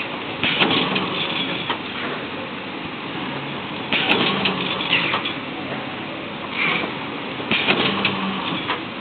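Automatic side seal shrink-wrap packaging machine running, with a hiss and clatter that repeats about every three and a half seconds as the machine cycles, three times here.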